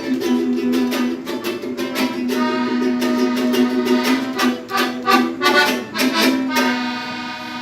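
Instrumental music: a sustained reedy chord under strummed strings. The strumming stops about six and a half seconds in and the held chord fades down.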